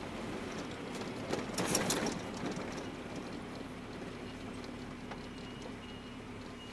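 Cab interior of a GAZelle van on the move: a steady engine drone with road noise, and a short cluster of rattles and knocks about a second and a half in.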